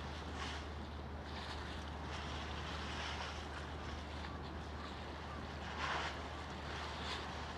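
Wind buffeting the microphone over open harbour ambience, with a steady low hum underneath; a brief louder gust about six seconds in.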